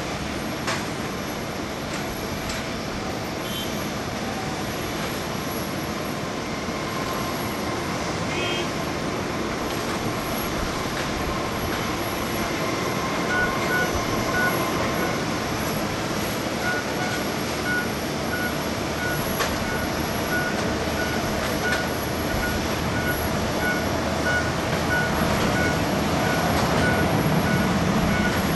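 Steady rushing jet noise from the four GEnx engines of a Lufthansa Boeing 747-8 on final approach, growing slowly louder toward touchdown near the end. A regular short electronic beep, about two a second, runs through the second half.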